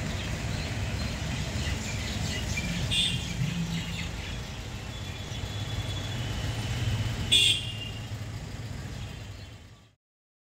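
City traffic heard from inside a taxi: a steady low engine rumble with several short car-horn toots, the loudest about seven seconds in. The sound fades out just before the end.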